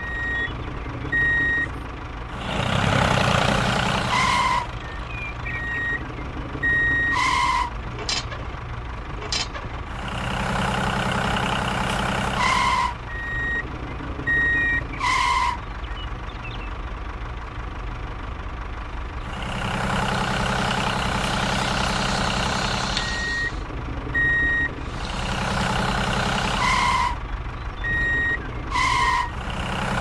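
Heavy-machinery sound effects: a diesel engine running and swelling louder in several stretches of a few seconds, with short high-pitched beeps like a reversing alarm and several brief sharp hisses like an air brake.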